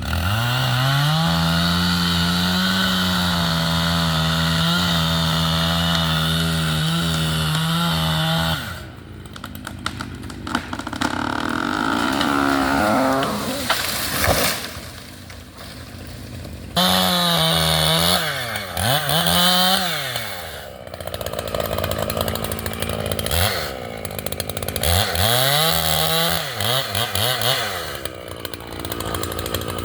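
Echo two-stroke chainsaw revving to full throttle and cutting wood. Its pitch wavers and sags under load. It drops back to idle between cuts and revs up again twice more, about halfway through and near the end.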